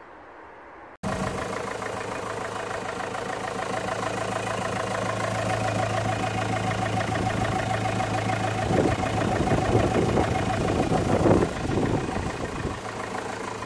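Renault Modus 1.5 dCi four-cylinder diesel engine idling steadily, starting abruptly about a second in, with a rougher, louder stretch around nine to eleven seconds in. The engine is running on a 12-volt jumper feed that bypasses the faulty UPC fuse-box module, and it cannot be switched off.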